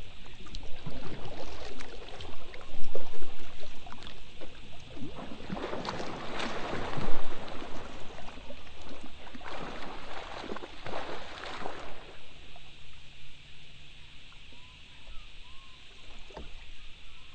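Water splashing and sloshing around a kayak, in washes of a second or two around six seconds in and again from about ten to twelve seconds in.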